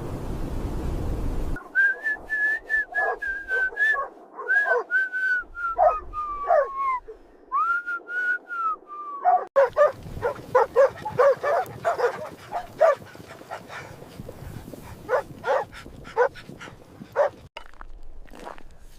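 A dog whining in long high, wavering whimpers, then giving many short yips and yelps. A rush of wind-like noise opens the stretch and cuts off suddenly.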